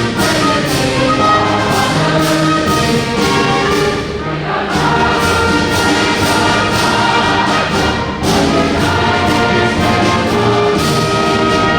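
Military service-song medley: a choir singing over an orchestra and brass band, with a steady beat.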